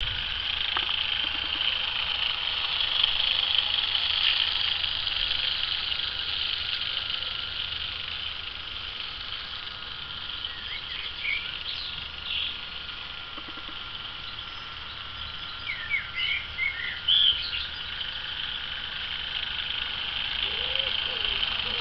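Small battery-powered electric motor of a toy train whining steadily as the train circles its track, louder as it passes near and fainter on the far side of the loop. Birds chirp several times in the middle.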